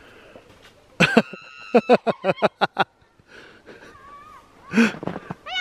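A person laughing in a quick run of short "ha" bursts starting about a second in, then a brief loud vocal cry near the end.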